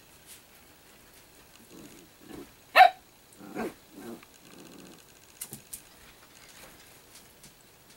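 Italian greyhounds play-fighting: low growls, a sharp bark about three seconds in that is the loudest sound, a second bark just after, more growling, then a few quick clicks.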